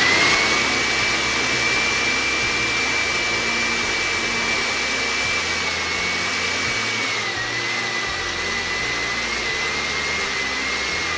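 Countertop electric blender running at full speed, blending strawberries and banana chunks into a smoothie. A steady motor whine runs over the grinding noise and drops a little in pitch about seven seconds in.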